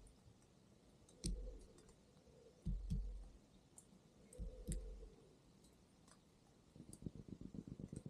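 European robin pecking at a filled coconut-shell feeder: dull knocks of the beak, single and in pairs, then a quick run of about ten pecks a second near the end.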